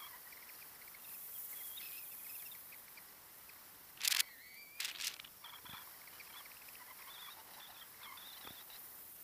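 Skis sliding over packed snow, with two short, loud hissing scrapes about four and five seconds in. Faint high, wavering squeaks run through it.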